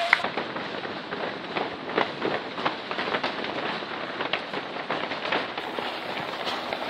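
Footsteps of a pack of marathon runners: many irregular shoe slaps on the running surface over a steady rustling hiss.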